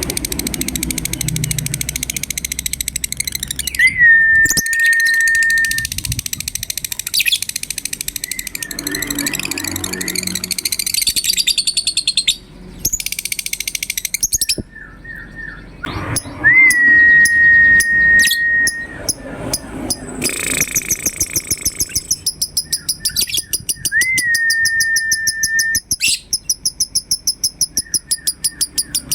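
Lovebirds chattering in long, fast, rapidly repeated high trills: the ngekek song prized in lovebird singing contests. Three times a clear whistle rises briefly and then holds one steady pitch for a second or two.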